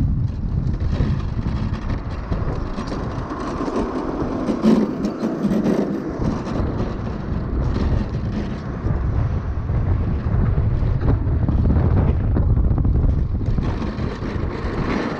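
Land yacht rolling at speed, its wheels and frame giving a continuous rough rumble, with wind noise on the microphone. The rumble swells a few seconds in and again near the end.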